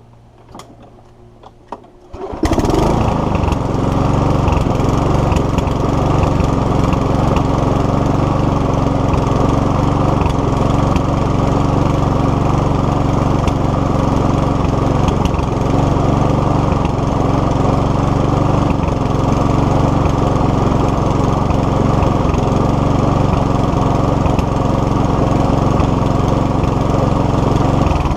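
Mountfield HP454 lawnmower's SV150 petrol engine, pull-started and catching about two seconds in, then running steadily until it stops right at the end. It runs again after a carburettor clean and a new fuel cap.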